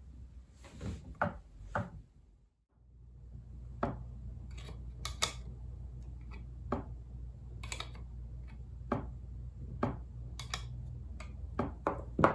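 Grand piano action being regulated by hand: scattered wooden clicks and knocks of keys, hammers and backchecks being pressed and worked, some with a small hand tool, over a low steady hum, with a brief silence about two seconds in.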